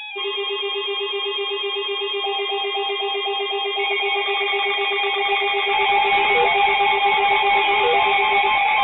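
Instrumental music with guitar: a repeating, pulsing figure of several held notes that grows gradually louder, with lower notes joining about six seconds in.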